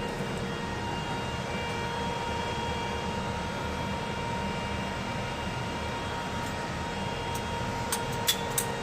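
Steady mechanical hum over a low rumble, with a few sharp clicks near the end.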